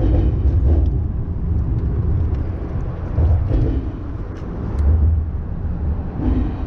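Road traffic crossing a highway bridge, a heavy low rumble that swells and eases as vehicles pass, several times over a few seconds.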